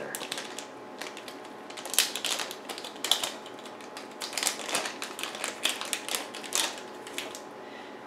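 Small parts being handled inside an opened mid-2012 MacBook Pro: irregular runs of light clicks and taps, with short pauses between them.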